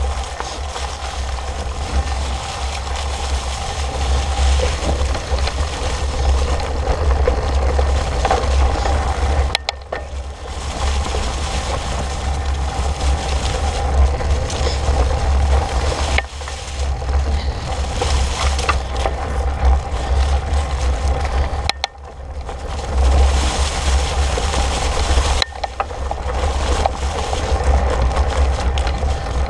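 Fat bike riding over a leaf-covered dirt trail: wide tyres crunching through dry leaves and the bike rattling over bumps, with a constant low rumble from wind and vibration on the handlebar-mounted camera. The noise drops away briefly four times.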